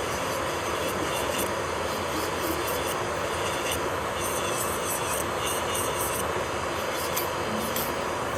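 Electric nail drill (e-file) running steadily, with brief high scratches every second or so as the bit works the nail.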